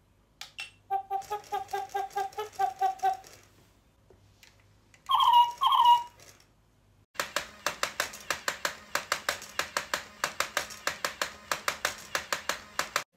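Enchanted Hedwig animatronic owl toy, driven from a bench power supply above its normal 4.5 volts. It plays a quick run of electronic owl chirps, then two louder hoots. From about seven seconds in, with the supply raised to 8 volts, its mechanism clicks rapidly and evenly, about five clicks a second, over a steady hum.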